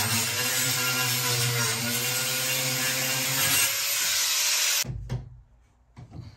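Corded angle grinder running, cutting into the wooden edge of a ceiling, its pitch wavering under load. It winds down and cuts off sharply about five seconds in, followed by a few light knocks.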